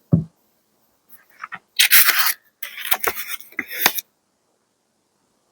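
A short low thump, then paper being handled: scraping and crinkling in two loud stretches about two and three to four seconds in, with a few sharp clicks.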